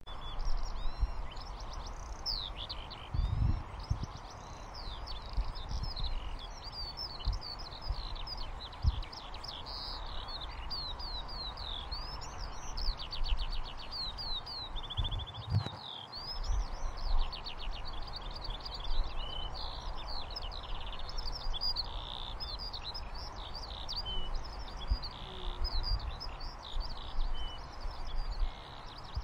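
Eurasian skylark singing: an unbroken stream of rapid, varied high warbling notes with fast trills mixed in, over irregular low rumbles.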